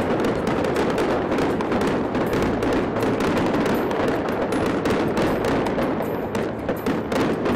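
A dense, rapid rattle of many fast impacts, steady in level.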